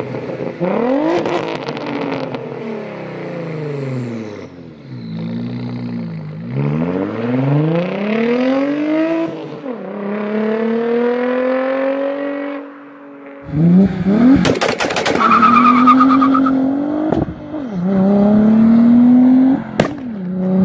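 Audi 2.7-litre twin-turbo V6 accelerating through the gears, its pitch climbing and dropping back at each shift. About two-thirds of the way through, a second run starts, louder and harder, with a brief high whine and a few sharp cracks between the shifts.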